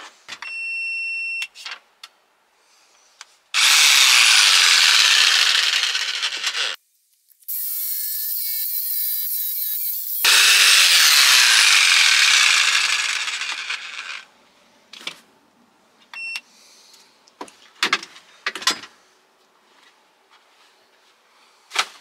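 Jigsaw cutting a curve into a solid wood worktop: two long spells of loud cutting, starting about three seconds in and again about ten seconds in, with a quieter, wavering whine between them. A brief high steady tone sounds near the start, and several sharp knocks come near the end.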